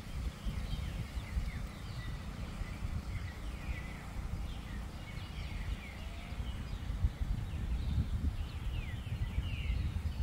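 A chorus of birds chirping, many short falling calls overlapping, over a steady low rumble.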